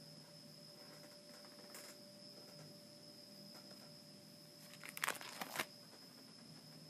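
Plastic binder page sleeves rustling and crinkling as the pages are handled, in a short burst of crackles about five seconds in, over a faint steady high whine.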